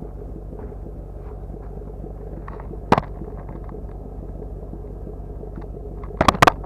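Ford Shelby GT500's supercharged V8 idling with a steady low rumble. There is one sharp knock about three seconds in and a quick cluster of knocks near the end.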